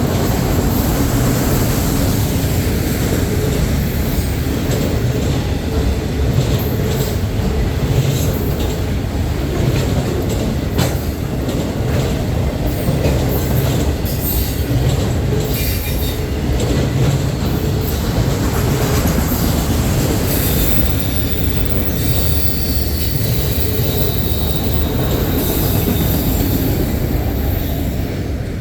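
Cars of a CN freight train rolling past on the rails: a steady, loud rumble of wheels on track with scattered clicks, and a faint high wheel squeal for a few seconds in the later part.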